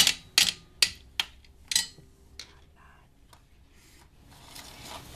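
A series of sharp clicks or knocks from hard objects, about seven, spaced further apart and fading over the first three seconds, followed by faint rustling.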